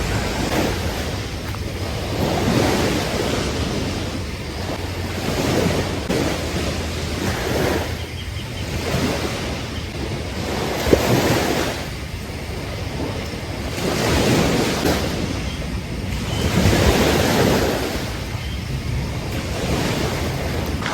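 Ocean waves breaking on a beach in repeated swells every few seconds, with wind buffeting the microphone. A brief sharp knock about halfway through.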